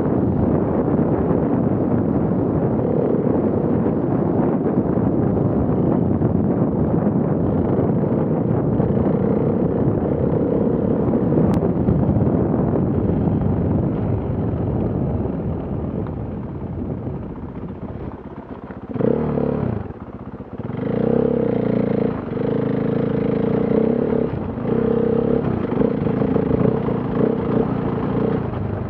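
KTM enduro motorcycle engine running under throttle on a rough, muddy track, heard from the bike with rushing wind and rattling. About two-thirds in it falls away briefly as the throttle closes. It then comes back as a clear engine note that rises and falls with repeated throttle blips.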